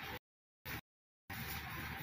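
Steady restaurant room noise, an even hiss with no clear tones, broken twice in the first second and a quarter by complete dropouts where the sound cuts out.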